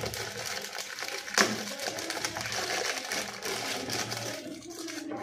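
Shiny gift wrapping paper rustling and crinkling as a present is torn open by hand, with one sharp crackle about a second and a half in.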